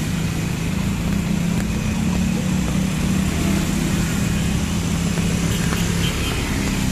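Motor scooter engines running steadily in slow traffic through floodwater, over a constant hiss of heavy rain and water. A low engine hum is strongest until about six seconds in.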